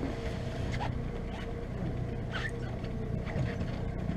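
Boat motor running steadily, a low even hum with a fainter steady higher tone above it and a few light clicks.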